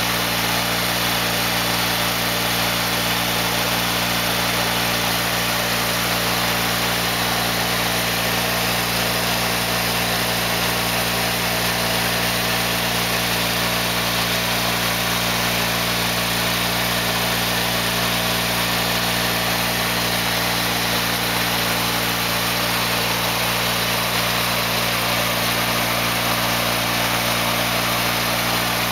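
Craftsman GT6000 garden tractor's 18 hp engine running steadily at constant speed, a low hum under a broad, even rushing noise.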